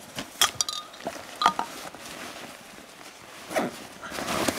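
Handling noise from a nylon backpack as gear is taken out and set down: rustling fabric with a few sharp clicks and clinks, the loudest about half a second and one and a half seconds in.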